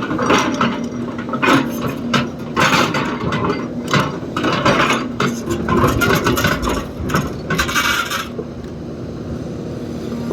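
Excavator loading a tipper truck: the bucket and the load scrape and clatter in quick, irregular strokes for about eight seconds, then the machine's diesel engine runs on steadily.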